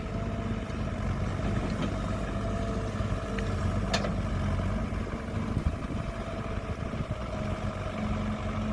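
Kobelco 07 excavator's diesel engine running steadily as the machine digs, with a sharp click about four seconds in.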